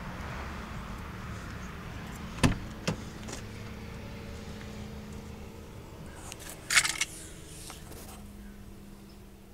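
Car doors being opened: two sharp latch clicks about two and a half seconds in, then a louder rattling clack a little past halfway, over a steady low hum.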